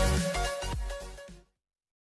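Electronic music with a heavy beat fading out, then stopping about one and a half seconds in.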